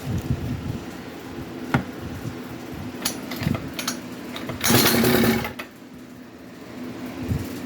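Brand-new 50cc two-stroke engine on a Coolster mini bike running at idle. It has a light rapid buzz, a sharp click about two seconds in, and a brief louder burst of noise a little before two-thirds of the way through.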